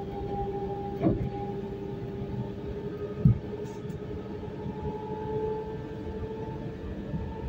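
Inside an EN76 (Pesa Elf) electric multiple unit on the move: a steady running rumble with the electric traction drive's whine over it, the whine creeping slightly higher in pitch past the middle. Two short knocks, about a second in and just past three seconds, the second the loudest.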